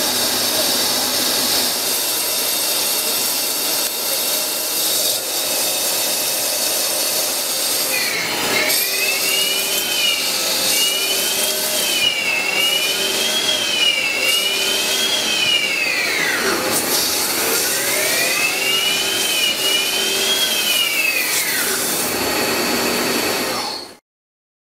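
CNC lathe turning and grooving a C45 carbon-steel (1.0503) workpiece: a steady hiss of machining for the first several seconds, then from about eight seconds in the spindle drive whines, rising and falling in pitch again and again as the spindle speeds up and slows down with the changing cutting diameter. The sound cuts off suddenly near the end.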